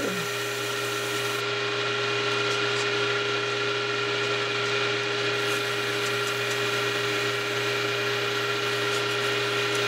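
Wood lathe running steadily with a constant hum, its spinning wooden workpiece rubbed by a hand held against it, a light hiss. The hiss stops about a second and a half in and comes back about halfway through, while the lathe runs on unchanged.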